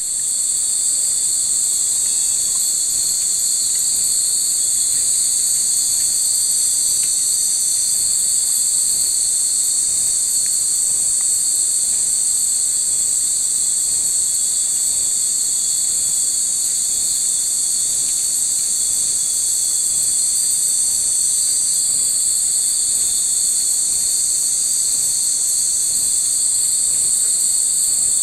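Dense insect chorus: a loud, high, continuous shrilling from many insects in the trees, holding steady without a break.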